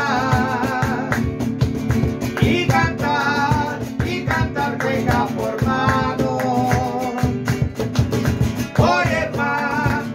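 A Chilean cueca played live: men singing over a strummed acoustic guitar, with hand claps and a cajón keeping the beat.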